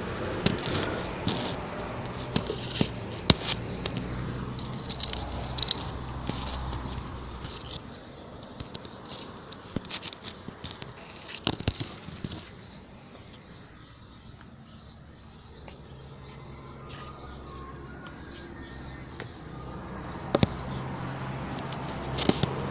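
Close rustling and crackling with many sharp clicks, like leaves and dry twigs or the camera itself being handled right at the microphone, thick for about the first twelve seconds. After that it goes quieter, with a single sharp click near the end.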